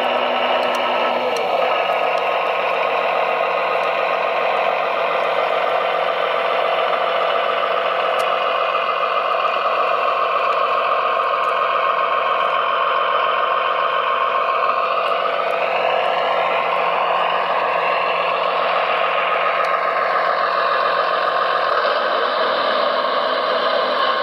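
Radio-controlled construction machines running: a steady electric motor and gear whine with a constant tone, whose pitch slides up and down in the middle.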